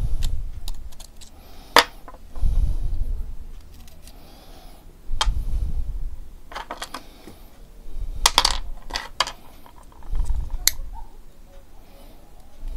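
Sharp metallic clicks and clinks of a folding knife being taken apart by hand: the blade, handle and small pivot-screw parts knocking together and being set down on a wooden board, as a handful of separate clicks. Dull low rumbles of handling come and go between them every few seconds.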